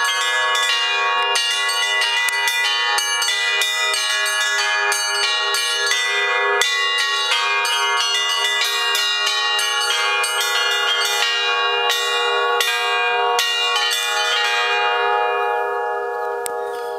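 Russian Orthodox church bells rung in a rapid, dense peal, several bells struck many times a second. Near the end the striking stops and the bells ring on, fading.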